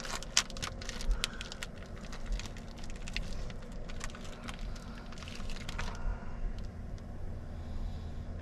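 Plastic pouch of string beef crinkling and crackling as it is opened and a piece is pulled out, a run of small sharp crackles that dies away about six seconds in, over a steady low hum.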